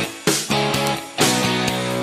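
Background music: a rock track with strummed electric guitar and a steady beat.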